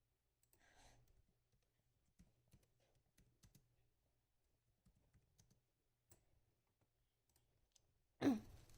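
Near silence with faint, scattered small clicks, and a brief voice sound near the end.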